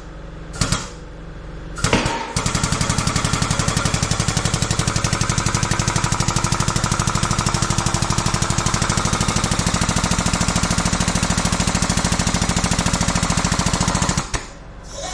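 Air-over-hydraulic bottle jack on a shop press pumping with a loud, rapid pulsing from about two seconds in until near the end, building pressure to push the wrist pin out of a preheated Jeep 4.0 piston and rod. Three short sharp sounds come first.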